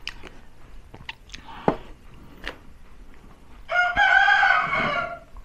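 A rooster crows once, a drawn-out crow of a bit over a second, starting near the end. Before it there are only faint clicks and light crunches.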